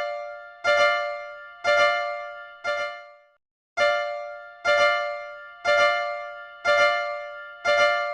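Level-crossing warning bell sound, a bell-like tone struck about once a second with each ring fading away, nine strokes with a slightly longer break after the fourth.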